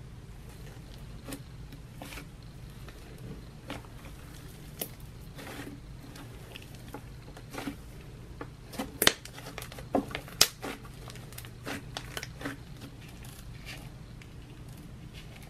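Fingers pressing and kneading soft butter slime studded with foam beads, giving scattered crackles and sharp little pops, with a cluster of louder pops about two-thirds of the way through.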